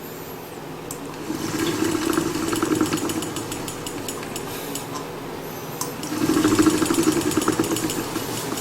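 CycleOps Fluid2 fluid-resistance bike trainer spinning up twice under pedalling, its roller hum overlaid with a fast rattle, the abnormal rattling noise from the trainer.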